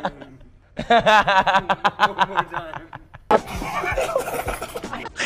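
A man laughing hard in rapid, repeated bursts. About three seconds in, the audio cuts to background music.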